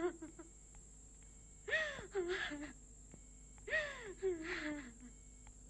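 A person sobbing: two wailing sobs, each rising and then falling in pitch with a short lower tail, about two seconds apart.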